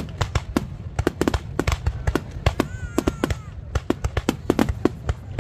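Fireworks display: a rapid, irregular series of sharp bangs and crackles from shells bursting, several a second.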